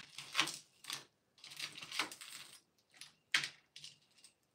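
Metal jewelry jangling and clinking as it is handled, in a string of irregular rattles.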